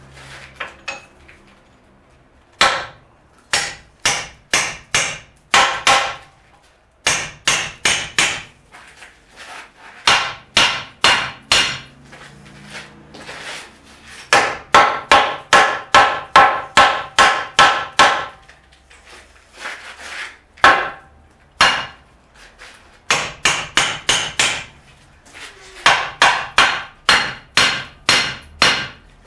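Hand hammer striking at a steel beam and the brickwork above it, in runs of several blows about two to three a second with short pauses between; some blows ring.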